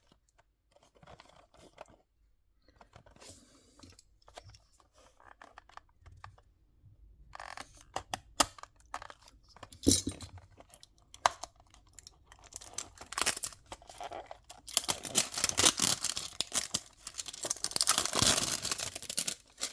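A small diecast model car's box being opened and unpacked by hand: scattered light clicks and taps at first, then a dense run of packaging noise that is loudest over the last several seconds.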